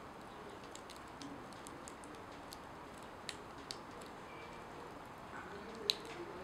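Faint, irregular ticking crackles from a corn-masa tortilla smouldering to ash on a metal tray, over a steady low hiss; the sharpest tick comes near the end.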